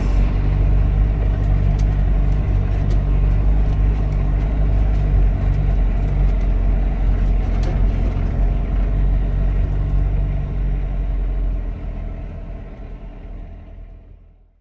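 Fiat Ducato camper van driving slowly on a rough, muddy dirt road, heard from inside the cab: a steady low engine and road rumble with scattered knocks and rattles. The sound fades away over the last few seconds.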